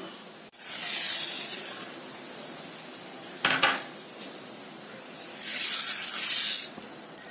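Roasted moong dal and then sago pearls poured from a bowl into water in a non-stick pan: two rushing pours of small grains a few seconds apart, with a brief clatter between them.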